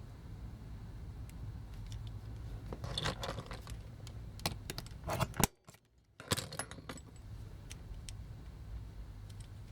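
Small metal tools clinking and tapping against a toy rivet as it is being punched out, with a cluster of louder sharp taps around five seconds in.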